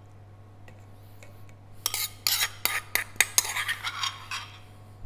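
A metal spoon scraping and clinking against a bowl as ceviche is scooped out. It is a quick run of clinks and scrapes starting about two seconds in.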